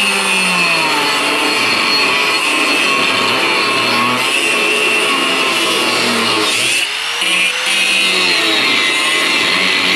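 Corded electric angle grinder with a cutting disc cutting a slot into steel angle iron: a steady high whine with grinding hiss. About seven seconds in the cut eases off briefly and the motor spins back up before biting again.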